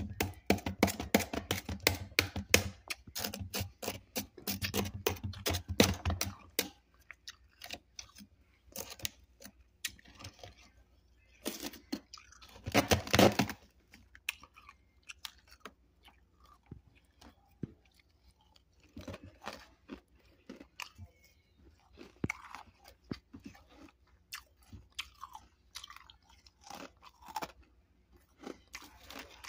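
Freezer frost being chewed close to the microphone: rapid, dense crunching for the first six seconds, then slower scattered crunches, with a loud burst of crunching about halfway through.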